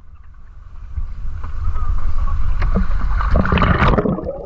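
Water sloshing and splashing over a low rumble, building about three seconds in, then breaking off suddenly near the end as the microphone goes under the sea surface.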